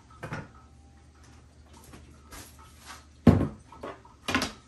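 Glass olive-oil bottle and kitchen items set down on a stone countertop: faint handling sounds, then a loud sharp knock about three seconds in and a second knock about a second later.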